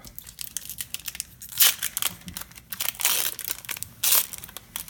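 Foil wrapper of a Magic: The Gathering booster pack crinkling and tearing as it is pulled open by hand, with a few louder crackles along the way.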